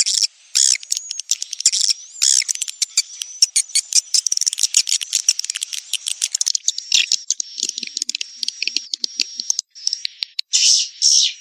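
Swiftlet calls: rapid, high-pitched chirps and clicking trills in dense runs, with a short break near the end. This is the kind of recording played in swiftlet houses to lure the birds to nest.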